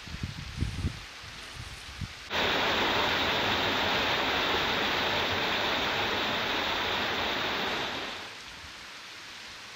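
Small waterfall cascading over rocks: a loud, even rush of falling water that starts suddenly about two seconds in and fades out about eight seconds in. Before it there is only a faint hiss with a few low thumps.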